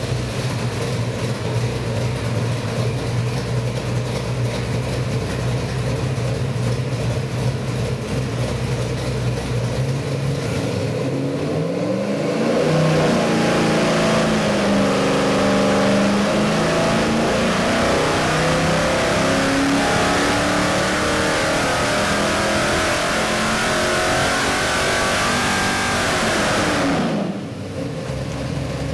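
Chrysler 408 stroker V8 (360 Magnum block, hydraulic roller cam, 750 Holley carburetor) running on an engine dynamometer. It holds a steady speed for about 11 seconds, then goes to full throttle and pulls through an RPM sweep, its pitch climbing steadily for about 15 seconds. Near the end the throttle is cut abruptly and it drops back to a low speed.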